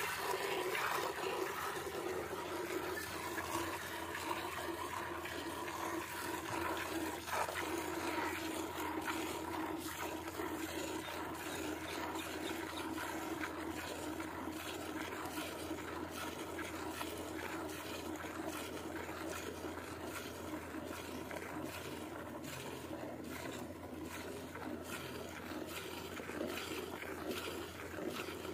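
Sahiwal cross cow being milked by hand: streams of milk squirting and hissing into an aluminium bucket.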